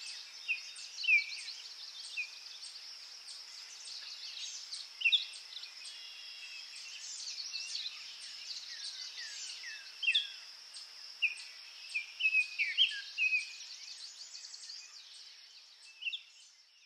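Outdoor nature ambience: songbirds chirping in short calls and quick downward-sliding notes over a steady high insect trill, fading out at the end.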